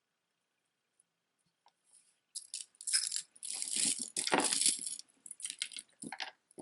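Costume jewelry clinking and rattling as pieces are handled and moved about. It starts about two seconds in, after near silence, as a busy run of clicks and jangles.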